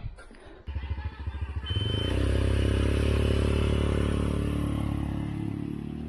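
Small motor vehicle engine comes in about a second in with an uneven, pulsing chug, then runs loud and steady from about two seconds on as the vehicle moves off, with a brief high squeak near two seconds in.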